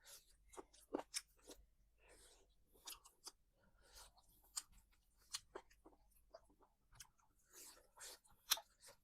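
A person eating close to the microphone: faint, irregular chewing with short crisp crunches and wet clicks, typical of biting into fried chicken or noodles.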